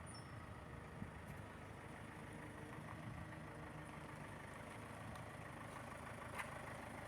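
Faint engine idling steadily, with a couple of light ticks.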